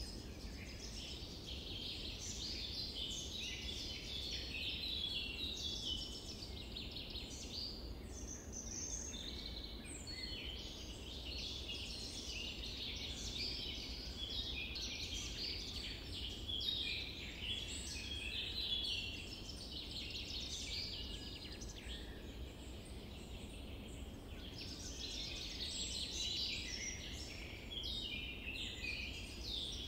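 A dense chorus of many birds chirping and calling at once, unbroken, over a low steady rumble.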